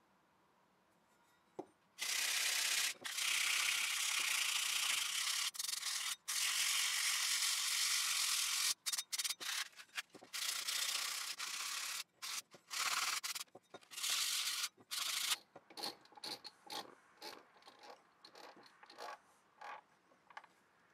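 Rust being scrubbed by hand off an old iron hatchet head. Starting about two seconds in, the scrubbing is fast and continuous, breaks into shorter spells past the middle, then turns to slower separate strokes, about two a second, that fade near the end.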